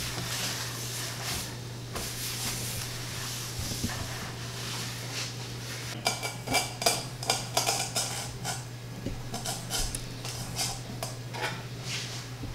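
A cloth rubs over a wooden cutting board. From about halfway through, hands work in a stainless steel mixing bowl of flour, with many sharp taps and clatters against the metal. A steady low hum runs underneath.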